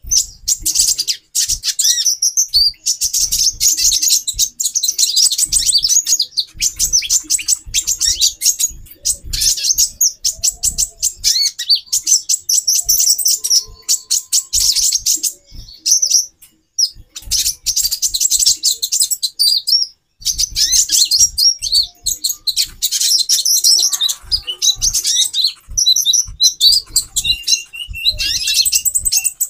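Several female brown-throated sunbirds (konin) calling together in rapid, high-pitched chirps and twitters, almost without a break, with a held whistled note near the end.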